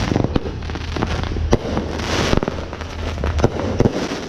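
Aerial fireworks going off overhead: a string of sharp bangs and pops at uneven intervals, with two hissing rushes, one at the start and one about two seconds in.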